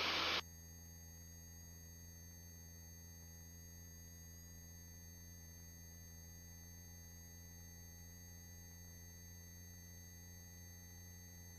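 Faint steady electrical hum with several thin constant tones, the line noise of a helicopter's headset intercom feed with no microphone open. A louder rush of open-mic noise cuts off about half a second in.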